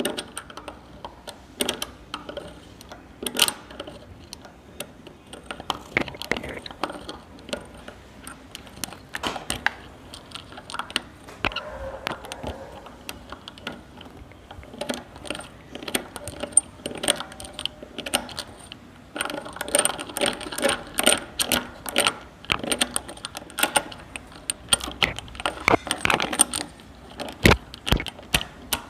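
Irregular clicking, knocking and rattling of small hard objects worked by hand close to the microphone, growing denser and busier about two-thirds of the way through.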